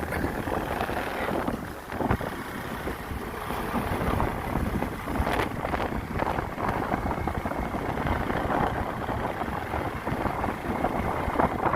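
Vehicle moving along a road: a steady road and engine rumble, with wind buffeting the microphone.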